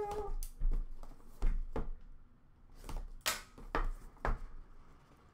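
Hands opening a cardboard hockey card box: a string of short, separate scrapes, taps and rustles of cardboard and wrapping, the sharpest a little past the middle.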